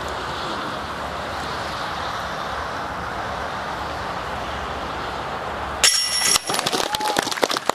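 Steady outdoor hiss, then about six seconds in a putt hits a disc golf basket's chains with a sudden metallic jangle and brief ringing, and the crowd breaks into clapping.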